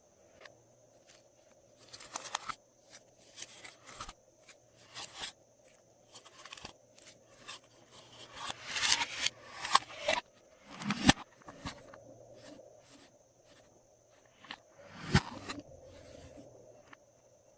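Glossy slime and plastic piping bags being handled and worked by hand: irregular sticky clicks, crinkles and short squelching bursts, busiest in the middle and again near the end.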